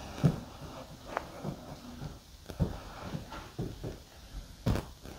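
Soft, irregular thumps and taps of someone walking with a handheld camera on a hard floor, about one or two a second, with a sharper click near the end.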